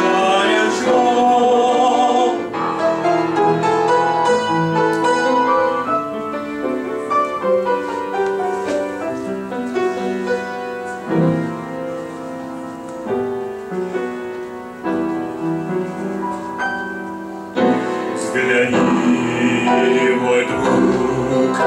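Instrumental break in a gospel song: keyboard plays the melody over chordal accompaniment, softer in the middle. About three-quarters of the way through, the arrangement swells back to a fuller, louder sound.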